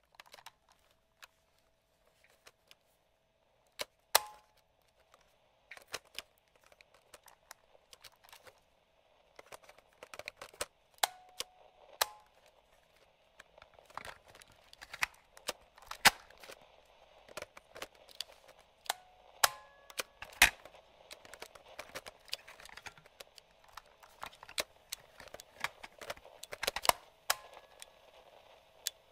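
Vintage portable radio-cassette recorder's switches, slide controls and piano-key transport buttons being pressed, giving irregular sharp mechanical clicks and clunks, some louder than others. Light radio static hisses underneath from about nine seconds in, with a few brief tones following some of the clicks.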